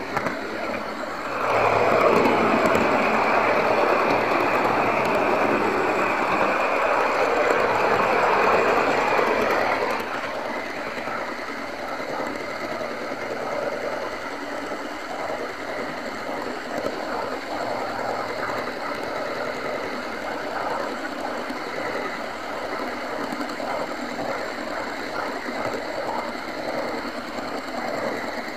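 OO gauge model train running on its track: a steady mechanical rattle of the wheels on the rails and the locomotive's motor. It grows much louder about a second and a half in, stays loud for about eight seconds, then settles to a lighter, even rattle.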